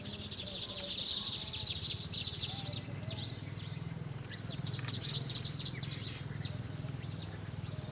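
Small bird chirping in rapid, high, twittering runs, loudest about a second in and again around the middle, over a low steady hum.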